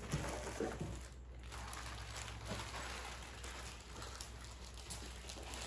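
Plastic wrapping and cardboard packaging rustling and crinkling as they are handled, with a few light knocks near the start.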